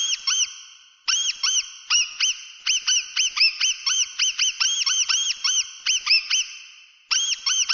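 Mouse squeaking: rapid runs of short, high squeaks, several a second, each rising and falling in pitch. The runs break off briefly about a second in and again near the end.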